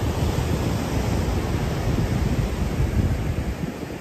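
Ocean surf washing onto the beach, with wind buffeting the microphone in a heavy low rumble that eases off near the end.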